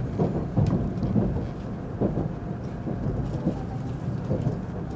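Inside a Shinkansen carriage pulling out of the station, the train's running noise: a low, uneven rumble from the wheels on the track that swells and dips with several stronger surges.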